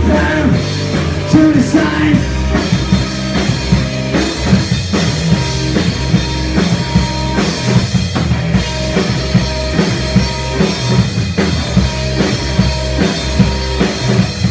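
Rock band playing an instrumental passage of a grunge song, the drum kit beating steadily under the bass and guitars.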